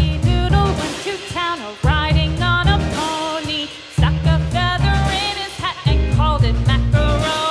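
Upbeat background music: a bouncy bass line under a sliding, sing-song lead melody, the bass dropping out briefly a few times.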